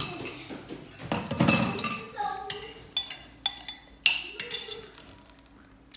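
Metal spoon clinking and tapping against a ceramic cereal bowl, a quick irregular run of sharp clinks that thins out near the end. A voice is heard briefly in the middle.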